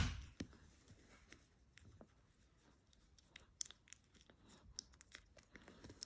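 Three-day-old Yorkshire Terrier puppy suckling at its mother's teat: faint, irregular wet clicks and smacks, with a brief bump right at the start.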